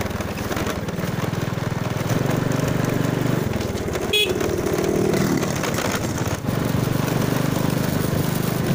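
A motorcycle engine running steadily while riding, heard from the rider's own bike together with road and wind noise; it gets a little louder about two seconds in. About four seconds in there is a brief high-pitched sound, followed by a short lower tone.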